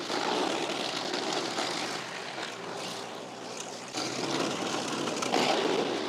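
Tractor-driven Woodmaxx MX-8600 PTO wood chipper chewing through a bushy cedar limb with a forked butt. It slows under the load, then carries on and takes it, with the sound rising again about four seconds in.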